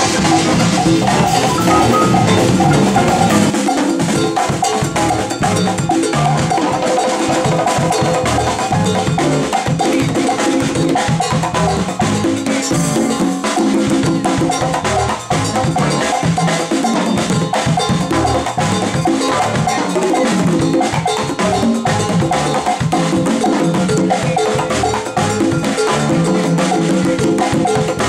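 Latin jazz band playing: a set of LP Galaxy congas struck by hand in fast rhythmic patterns, over piano chords and drum kit.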